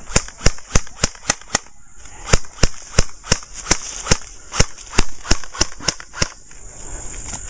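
Airsoft gun firing a rapid string of single shots, about three a second, with a short break near two seconds in; the shooting stops a little after six seconds in.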